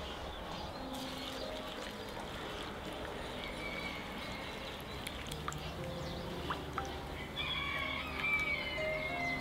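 A rooster crows near the end, after a shorter fowl call about halfway in. A few light clicks come from a basting brush stirring marinade in a terracotta bowl.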